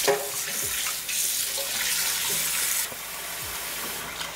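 Cold tap water running into a stainless steel bowl of raw chicken drumsticks, splashing as a hand swishes the pieces. The splashing quietens a little before three seconds in, leaving the steady stream pouring into the filling bowl.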